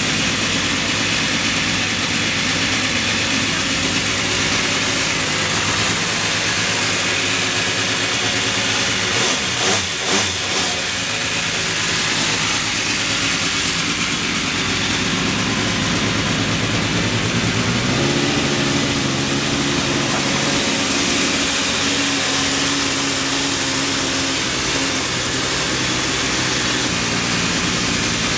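Alfa Romeo 155 V6 TI DTM race car's V6 engine idling steadily while warming up, with a few short blips of the throttle about ten seconds in. About two-thirds of the way through the idle steps up to a slightly higher, steady speed.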